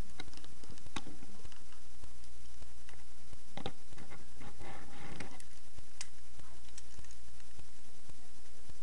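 Small plastic clicks and handling from the joints and tabs of a Transformers Warrior Class Bumblebee figure being worked by hand, a handful of scattered snaps with a short rustle about halfway through, over a steady low hum.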